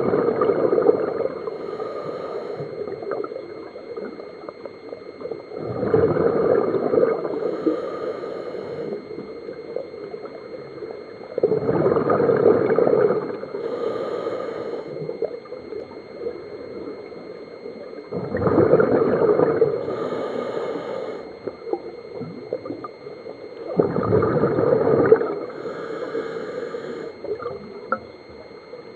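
A scuba diver's open-circuit regulator breathing underwater. Five gurgling bursts of exhaled bubbles come about every six seconds, each trailed by a softer, higher regulator hiss.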